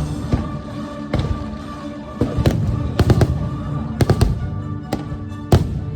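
Fireworks bursting in a show, about ten sharp bangs at uneven intervals, the loudest near the end, over the show's orchestral soundtrack playing through loudspeakers.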